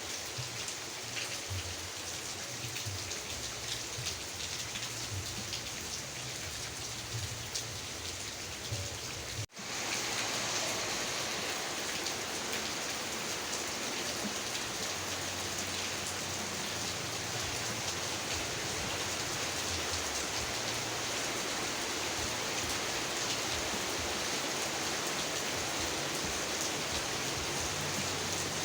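Steady heavy rain falling as a dense hiss of drops. About a third of the way in it drops out for an instant, then carries on slightly louder, like a splice in the recording.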